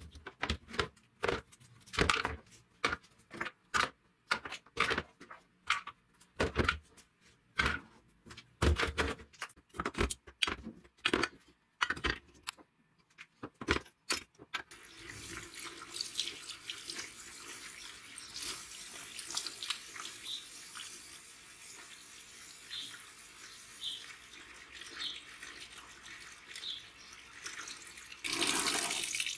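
Dismantled chainsaw parts (plastic housings, metal crankcase halves and cylinder) set down one after another in a plastic tub, a fast run of clacks and knocks. About halfway through this gives way to tap water running steadily into the tub, louder near the end.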